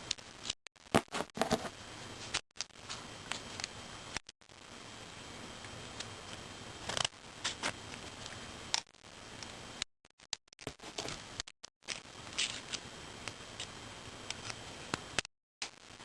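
Scissors snipping at a small plastic part of a mechanical pencil to cut it off, a few sharp snips and clicks at irregular intervals.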